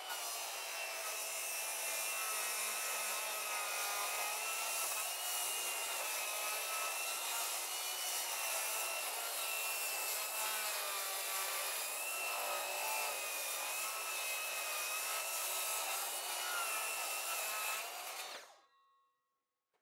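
Cordless circular saw with a carbide-tipped blade running and cutting along the ends of weathered pallet boards, a steady whining buzz that wavers slightly as the blade loads in the wood. It stops near the end.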